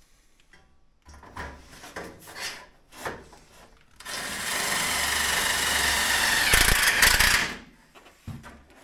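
Power drill running steadily for about three and a half seconds, after a few short knocks and scrapes, as metal stud framing for a drywall partition is fixed in place.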